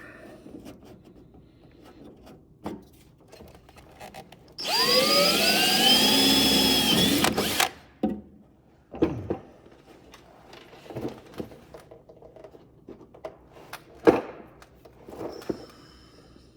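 Handheld power drill running for about three seconds, its motor whine rising as it spins up, then levelling off and stopping abruptly. Scattered clicks and knocks of hand work on metal parts come before and after it, with one sharper knock near the end.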